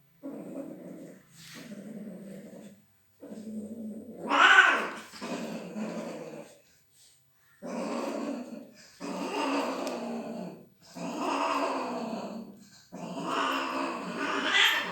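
A cat growling: a string of low growls, each about a second long with short gaps between them. Several of the later ones swell into louder yowls.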